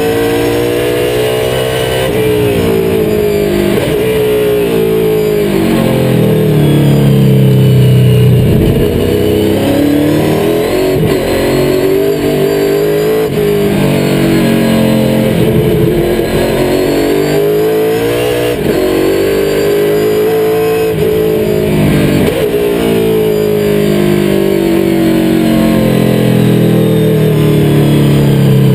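NASCAR stock car's V8 engine at racing speed, heard inside the cockpit: the pitch climbs under throttle and drops repeatedly as the car brakes and downshifts for corners.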